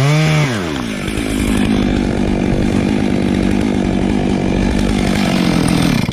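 Chainsaw revving up and down, then held at full throttle in a steady cut through wood. It cuts off suddenly near the end.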